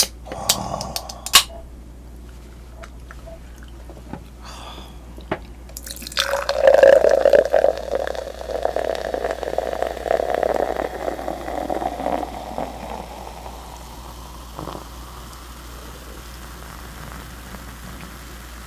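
A dark carbonated drink poured from a can into a glass beer mug, foaming as it fills. The pour starts suddenly about six seconds in and fades away over roughly seven seconds, after a couple of sharp clicks near the start.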